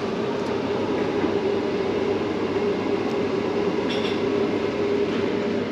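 Tram passing on the street, with a steady electric hum over the rumble of wheels on rails.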